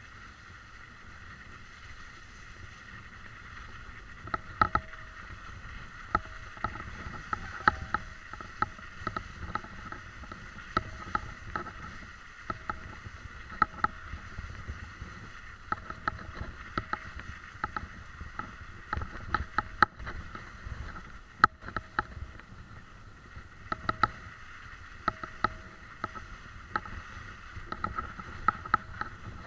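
Wheels rolling down a rutted, snow-covered track: a steady crunching hiss of snow with frequent irregular sharp clicks and knocks from the bumps.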